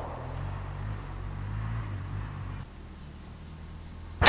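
Steady high-pitched insect drone with a low hum underneath. Right at the very end, the sudden crack of an AR-15 rifle shot, a .223 Remington 55-grain round, freaking loud.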